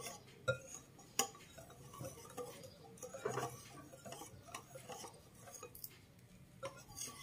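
Wire whisk stirring thin puto batter in a ceramic bowl: faint, irregular light clinks and ticks of the wires against the bowl, with two sharper clinks in the first second and a half.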